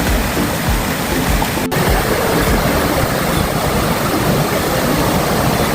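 River waterfall: water rushing steadily over the falls, with a split-second gap in the sound a little under two seconds in.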